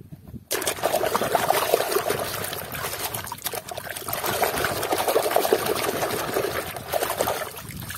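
Soapy water in a basin splashing and sloshing as a hand scrubs a plastic toy race car under the foam. It starts about half a second in and goes on steadily, full of small splashes.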